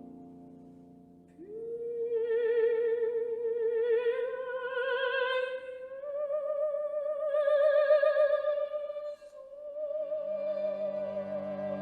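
Music: a high, operatic-style voice sings long held notes with wide vibrato, rising slowly from note to note, over soft sustained chords. A lower chord enters near the end.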